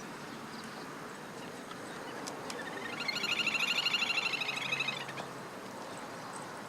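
Little grebe giving its whinnying trill: a rapid run of high notes lasting about two and a half seconds, swelling then fading, over a steady background hiss.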